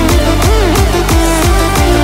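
Electronic dance music with a steady beat and low bass notes that slide down in pitch.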